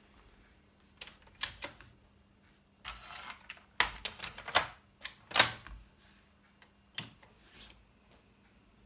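An irregular run of sharp mechanical clicks and clunks, with brief rattling, from about a second in until near the end, as from the keys, cassette door or casing of a cassette deck being worked by hand. No steady squeal is heard.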